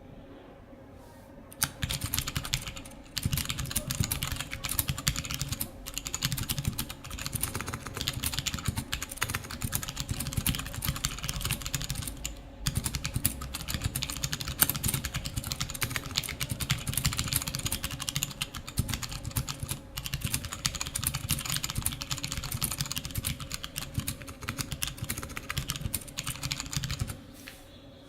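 Continuous fast typing on a 60% mechanical keyboard with tactile Gateron Brown switches on 67 g springs, in an aluminium case with an integrated aluminium plate and XDA keycaps. The typing starts about a second and a half in, pauses briefly twice, and stops just before the end.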